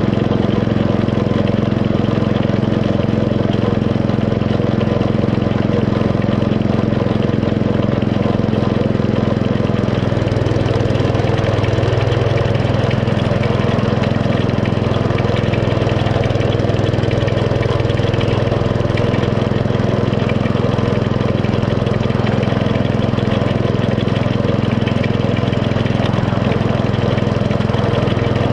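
Small engine of a 7 1/4-inch gauge miniature railway locomotive running steadily while hauling the train, its note changing about ten seconds in.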